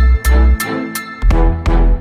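Background music with a heavy bass beat and sharp percussive hits.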